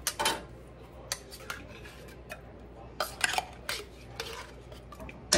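A metal utensil clinking and scraping against a tin can and a metal pot, in irregular sharp clinks, as condensed cream of chicken soup is scooped out of the can into the pot.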